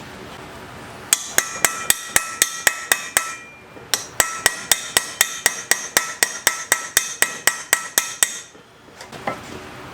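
A hand hammer beating on metal, about four sharp, ringing blows a second. There is a short run, a brief pause, then a longer run of blows that stops about a second before the end.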